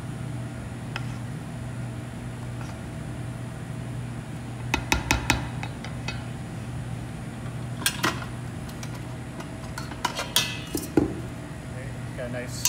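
Rubber spatula folding chocolate mousse in a stainless steel mixing bowl: soft scraping, with a quick run of sharp clicks against the bowl about five seconds in, and more knocks and clanks near the end as the metal bowls and whisk are handled. A steady low hum runs underneath.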